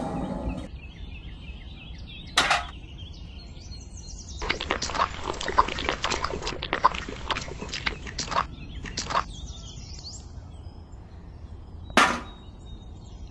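Wet miniature concrete being poured and scraped out of a small tin bucket: a run of short wet slaps and scrapes through the middle, with two sharp knocks of the little metal bucket, one about two seconds in and one near the end. Faint bird chirps behind.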